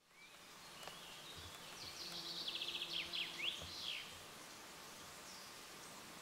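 A songbird sings one short phrase about two seconds in: a fast run of rapidly repeated high notes, then a few quick sweeping notes. It sits over a steady outdoor background hiss.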